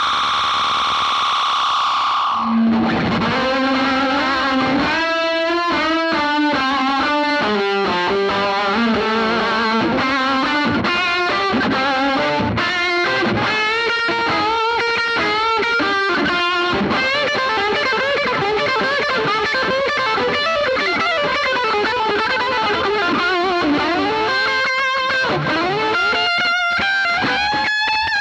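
Electric guitar played through a Donner White Tape delay pedal into a Fender Bassman 59 amp, picking a run of single notes that each trail off in echo repeats. It opens with a steady held drone that cuts off about two and a half seconds in.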